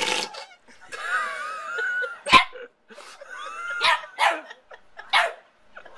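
Small dog yapping in about five short, sharp barks, with a longer wavering cry about a second in.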